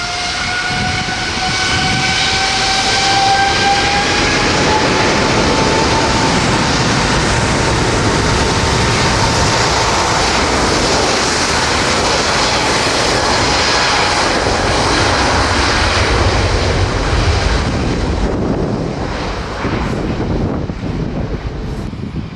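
Saudia Boeing 777 jet engines at takeoff power on departure: a rising whine over a loud, steady roar, which fades near the end.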